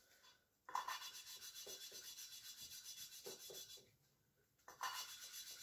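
Valve lapping in a Honda K20A2 cylinder head: a valve is spun back and forth against its seat with grinding paste, giving a gritty rasping in quick strokes. It starts about a second in, pauses briefly near the end, then starts again. The grinding is already going quieter as the valve face and seat bed in.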